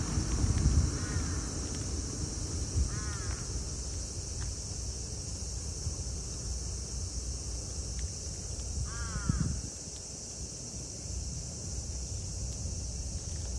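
A crow cawing with single short caws, about three spread several seconds apart, the first one faint.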